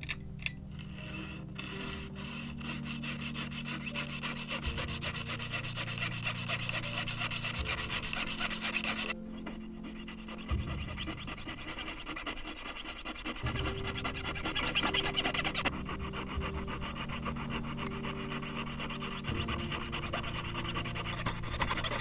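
Jeweller's piercing saw rasping in rapid strokes as its fine blade cuts through a thin silver case along a split, pausing briefly about nine seconds in. Soft background music with sustained chords plays underneath.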